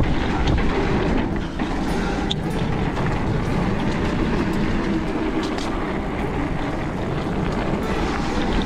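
Fat 27.5 x 3 inch tyres of a rigid mountain bike rolling over a dirt singletrack, a steady low rumble and hiss, with a few short clicks and rattles from the bike.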